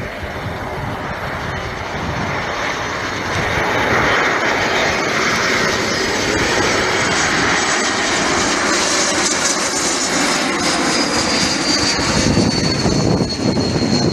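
Embraer E195-E2's Pratt & Whitney PW1900G geared turbofan engines on final approach: a steady jet rumble that grows louder about four seconds in. Near the end a high whine falls in pitch as the airliner passes.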